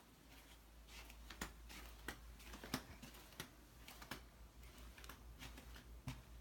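A run of irregular light clicks and taps, about a dozen and a half, over a faint low hum.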